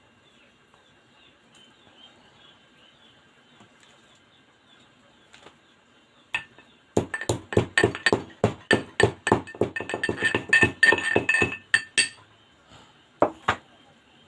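Spoon clinking rapidly against a glass, about five strikes a second for some five seconds, each strike leaving a ringing tone, as when tea is stirred in the glass. Two single clinks follow near the end.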